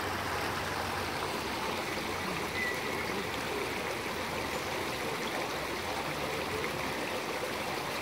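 Steady rush of running water from a waterfall and stream feeding a pond.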